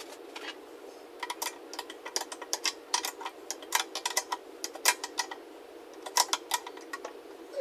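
A run of irregular sharp clicks and light taps, coming in quick clusters, over a steady low hum.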